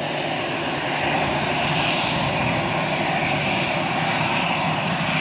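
Aircraft engines running steadily at a constant level.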